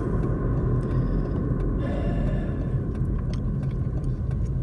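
Steady low rumble of a car heard from inside the cabin while driving, engine and road noise together, with a few faint light clicks.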